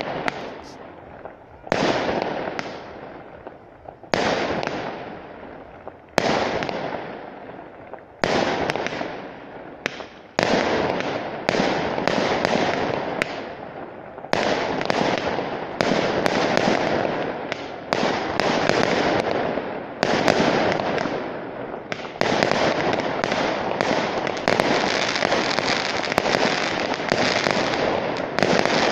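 Aerial firework shells bursting with sharp bangs, each trailing off in an echoing rumble. The bangs come about every two seconds at first, then faster and overlapping into a dense barrage of many quick reports toward the end.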